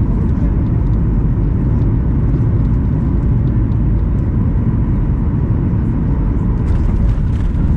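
Steady low rumble of a Boeing 737-800 jet airliner heard from inside the passenger cabin, with a faint steady tone and a few light ticks of rattle.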